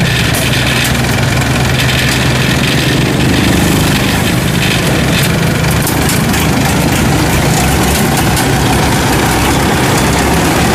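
Engine of a homemade Vietnamese tracked rice harvester running steadily as the machine crawls forward on its crawler tracks.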